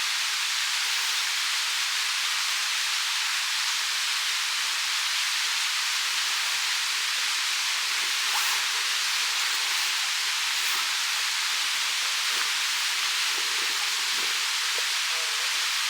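A steady, even rushing hiss with a few faint ticks scattered through it.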